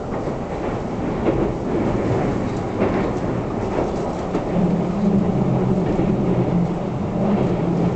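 Keisei Skyliner electric train running at speed, heard from inside the passenger cabin: a steady rumble with a few sharp clicks of wheels over rail joints. A low steady hum comes in about halfway through.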